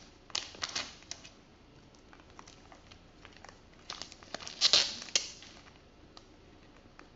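Plastic shrink-wrap on an iPhone XS Max box crinkling and tearing as it is pulled off, in two spells of crackling, the second, about four and a half seconds in, the louder.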